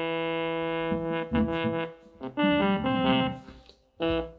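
Synth lead notes played by hand on the pads of an Artiphon Orba, set to a lead preset. One long held note, then a run of shorter notes with small gaps, dying away just before a new note starts near the end.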